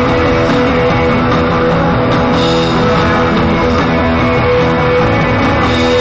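Rock band playing loud and steady live: a drum kit and electric guitars, picked up close to the drums on stage.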